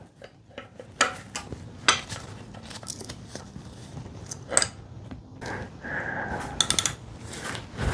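Metal hand tools clinking and knocking against each other and the engine, an adjustable wrench being picked up and worked, with scattered light clanks and a few high ringing taps near the end.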